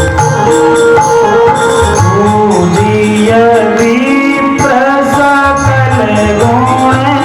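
Devotional verse sung in a wavering, melismatic line over held instrument tones, with hand drums keeping a beat.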